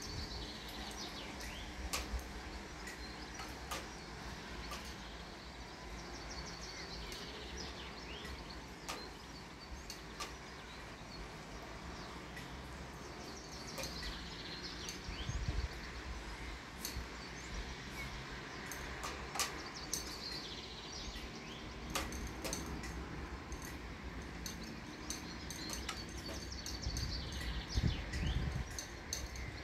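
Outdoor ambience: a bird singing short twittering phrases every six or seven seconds over a low wind rumble on the microphone, with occasional sharp clicks.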